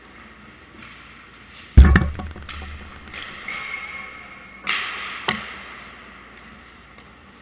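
Ice hockey drill in an echoing indoor rink: a loud, heavy crack with a deep thud about two seconds in, like a puck slamming into the boards, then skate blades scraping on the ice, and two more sharp cracks a little past halfway.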